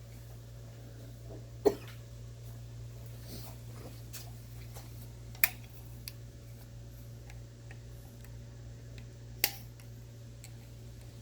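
Three sharp clicks or knocks, about four seconds apart, from handling the parts of a BMW thermostat during disassembly, over a steady low hum.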